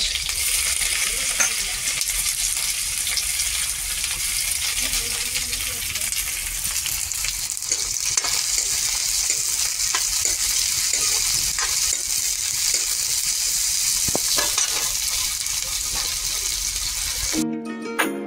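Sliced onion, garlic and green chillies sizzling in hot oil in a metal kadhai, with a ladle stirring and scraping against the pan now and then. About a second before the end the sizzling cuts off and music begins.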